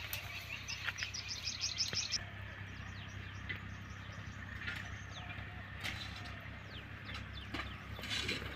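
Birds chirping: a fast, evenly repeated chirping call for about the first two seconds, then fainter scattered bird calls over a low steady hum.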